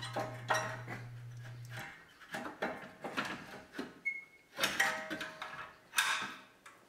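Metal exhaust manifold and catalytic converter assembly being worked loose and lifted out of an engine bay: an irregular series of metallic clunks, knocks and scrapes as it catches on the surrounding parts. A steady low hum underneath stops about two seconds in.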